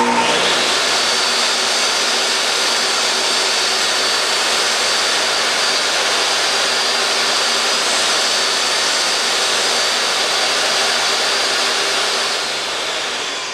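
DeWalt DWE7480 job site table saw switched on and running steadily with a high whine while a strip of white oak is ripped, starting to spin down near the end.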